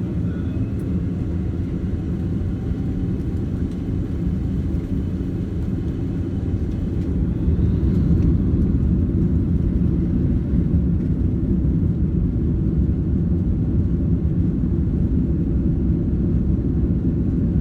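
Low, steady rumble of a Boeing 767-300ER heard inside its rear passenger cabin. It grows a little louder about eight seconds in.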